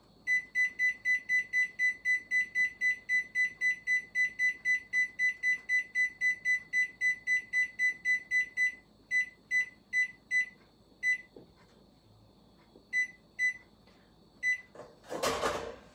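Electric oven's control panel beeping as the cook timer is set to 40 minutes: a fast run of short, high beeps, about four a second, for about eight seconds, then single beeps at uneven gaps as buttons are pressed one at a time.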